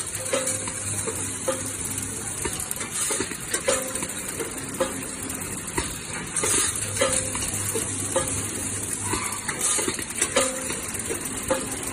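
Skewer bagging machine running. A steady hiss is broken by frequent light clicks and clatter, and a louder high hiss swells about every three and a half seconds as the machine cycles.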